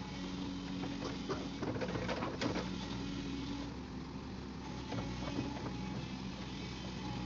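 Excavator's diesel engine running steadily, warming up after a cold start, with a few short higher-pitched sounds over it between about one and two and a half seconds in.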